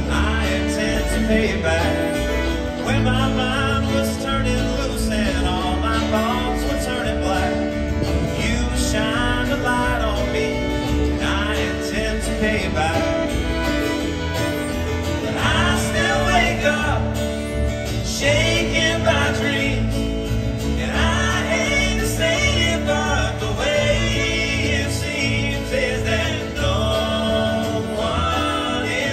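Acoustic band playing live: acoustic guitar, upright bass and fiddle, with a man singing over them in a country or bluegrass style.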